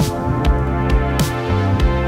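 Background music: an electronic track with a steady drum beat and bass line.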